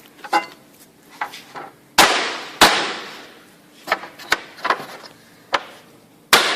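Hammer taps on a wooden block, knocking a window guide cover into place. The taps come irregularly, some light and some hard, with two heavy blows about two seconds in and another near the end, each leaving a short ringing rattle.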